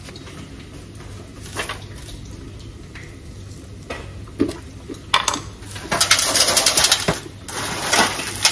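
Roasted peanuts rattling and foil crinkling as a hand rubs and stirs them on a foil-lined baking tray to loosen their skins. A few scattered clicks at first, then a dense rapid rattling from about five seconds in.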